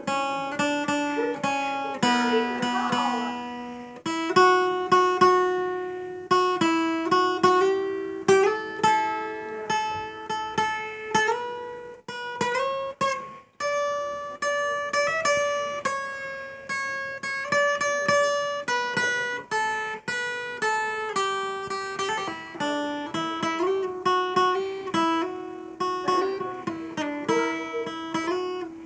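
Acoustic guitar playing picked melody notes and strummed chords, without singing.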